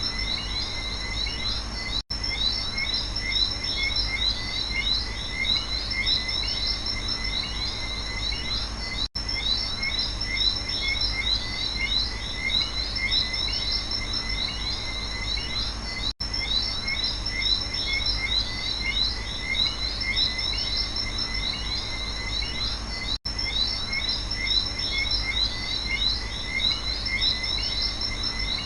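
Night rainforest chorus of frogs and insects: dense, overlapping chirps over a steady high-pitched insect drone. The sound cuts out briefly about every seven seconds, four times.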